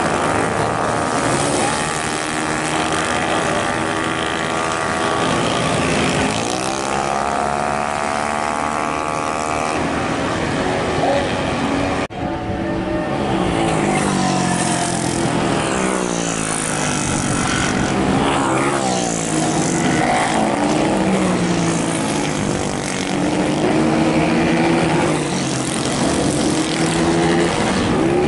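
Small race motorcycles' engines revving hard as they pass one after another, each pitch rising and falling with the throttle and as it goes by. The sound breaks off briefly about twelve seconds in.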